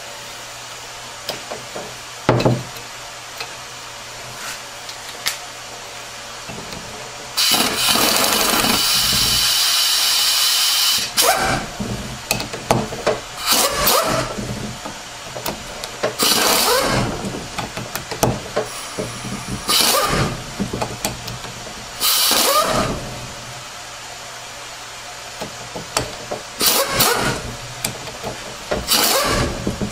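Pneumatic air tool running in bursts as it spins out the bolts of a 6R80 transmission oil pump during disassembly: one long run a quarter of the way in, then a series of short bursts, bolt after bolt.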